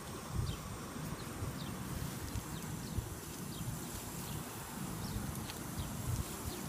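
Garden hose spraying water over a dog and onto wet pavement, a steady soft hiss over a low rumble, while short high chirps repeat one or two a second.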